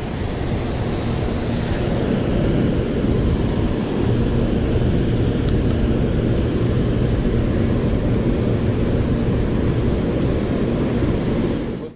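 Steady roar of water pouring through a dam's open spillway gates into the river below, heaviest in the low rumble, with one faint click about five and a half seconds in; it cuts off suddenly near the end.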